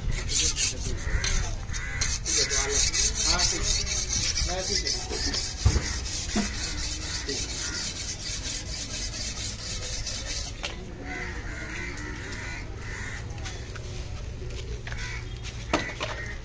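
A large knife blade being sharpened by rubbing it back and forth on a wet concrete step: rapid, evenly spaced scraping strokes that stop about ten seconds in. Crows caw after the strokes stop.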